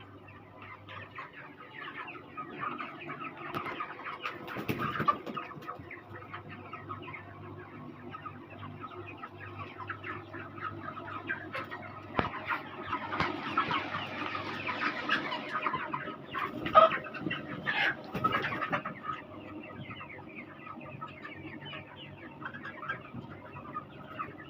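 A large flock of 35-day-old chickens peeping and clucking, many short calls overlapping, busiest a little past halfway. A steady low hum runs beneath the calls for the first half.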